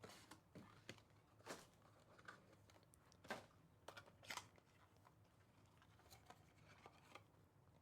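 Faint, scattered crinkling and tearing of the packaging on a box of trading cards as it is opened, with a few sharper crackles.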